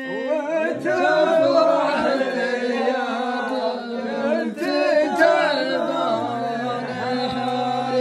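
Several men chanting the refrain of a sung Arabic poem together, their voices overlapping unevenly. Near the end a low note is held.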